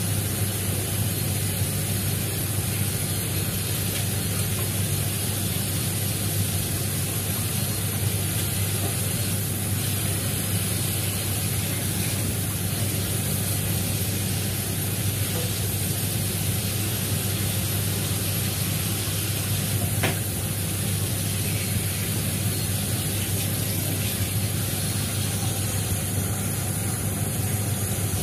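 Kitchen tap running steadily onto watercress in a wire-mesh colander over a stainless-steel sink, with a low steady hum underneath. A single short click comes about two-thirds of the way through.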